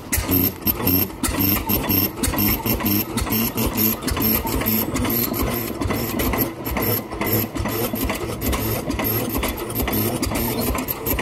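Fairbanks-Morse 6 hp hit-and-miss stationary engine running, with a regular, repeating exhaust beat.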